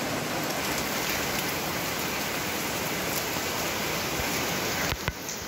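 Heavy rain falling steadily, with a brief click near the end.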